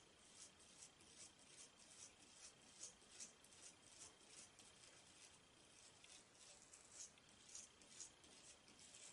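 Toothbrush bristles lightly scrubbing a corroded camera circuit board: faint, scratchy strokes, about two or three a second.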